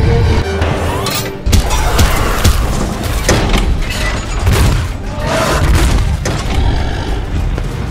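Film-style fight sound effects: a string of heavy booms, thuds and crashing impacts, starting with a sharp hit about a second and a half in, over background music.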